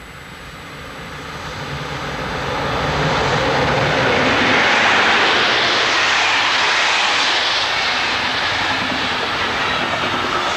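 Electric-hauled passenger train passing at speed: a rushing roar that builds over the first few seconds as it approaches, then holds steady as the coaches run past.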